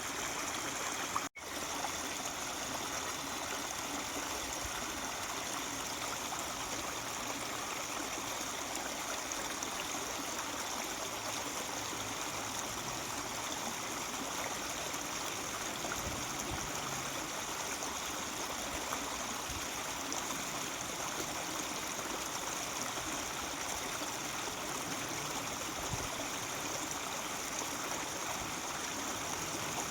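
Mountain stream babbling and trickling steadily, with the sound cutting out for an instant about a second in.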